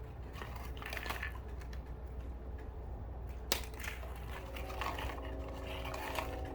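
Clicks and light handling knocks from the plastic buttons and case of an iHome alarm clock radio being pressed and handled as it is tried again and again, the unit left unresponsive by salt water; one sharp click comes about three and a half seconds in. A steady humming tone sets in about four seconds in, under a constant low hum.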